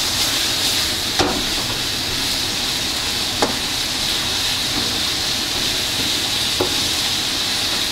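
Pork curry with roselle leaves sizzling steadily in a pot, with three short sharp clicks.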